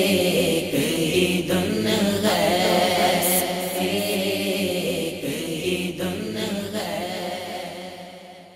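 A man's voice chanting an Urdu naat melody with a sustained vocal backing. It fades out over the last two seconds.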